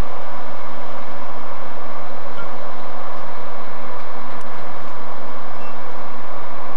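A pair of NZR EF-class electric locomotives hauling a freight train slowly past: a steady, unbroken running noise with a faint constant hum.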